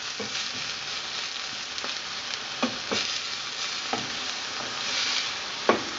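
Pieces of haddock coated in green curry paste sizzling steadily in a stainless steel frying pan, with a black plastic slotted spatula stirring them and knocking against the pan a few times.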